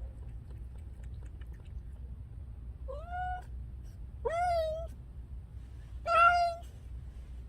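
Adult female cat in heat calling: three separate meows, each rising and then held for about half a second, the last one the loudest.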